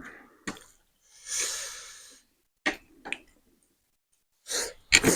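Mouth sounds of someone eating spicy noodles: a few short smacking clicks and a hissing breath lasting about a second, then a quick run of eating noises near the end.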